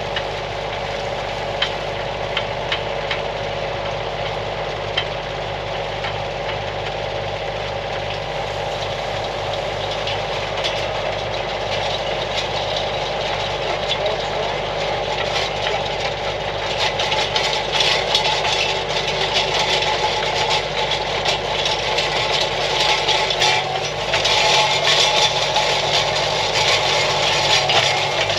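Kioti CK2610 compact tractor's three-cylinder diesel running steadily as it drives a PTO posthole-digger auger. From about halfway through, a dense gritty crackle of the auger grinding into the ground joins in and grows louder toward the end.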